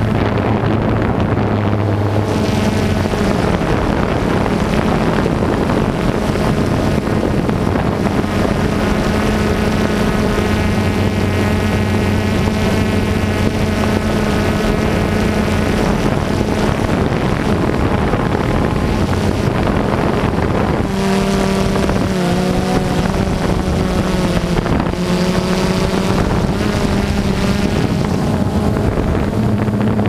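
Multirotor drone's motors and propellers running steadily, a loud buzzing drone with wind noise on the microphone, heard from the camera it carries. The motor pitch shifts up and down about twenty-one to twenty-five seconds in as the craft manoeuvres.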